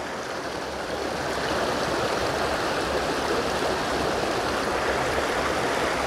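A creek running steadily: an even rush of flowing water, growing slightly louder in the first second or two.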